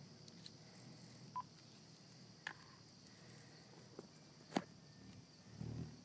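Faint, steady night chorus of crickets. A few sharp clicks cut across it, the loudest about four and a half seconds in, and a brief low rumble comes near the end.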